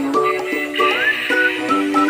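Cheerful music: a melody of short held notes, with a high line that slides up in pitch about a second in.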